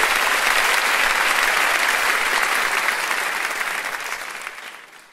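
Theatre audience applauding, fading away over the last couple of seconds.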